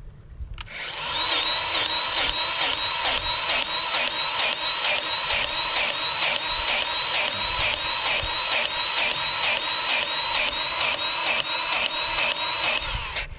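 Battery-powered grease gun running steadily, its pump pulsing a little over twice a second with a high motor whine, forcing grease into a pivot-pin grease fitting that had been starved of grease. It starts just under a second in and stops shortly before the end.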